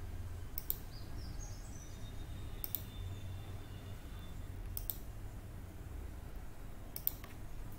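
Computer mouse button clicked four times, about two seconds apart, over a low steady hum.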